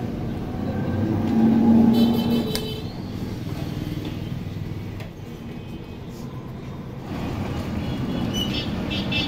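Road traffic running past, with short horn toots about two seconds in and again near the end.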